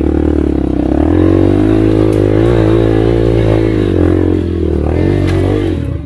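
Dirt bike engine revving hard under load, its speed rising and falling unevenly as the bike is ridden up a steep, rocky slope, with two sharp clacks partway through.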